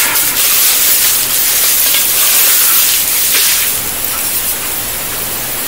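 Clear plastic wrapping crinkling and rustling as a camera lens hood is pulled out of its bag, loudest for about the first three seconds, then softer.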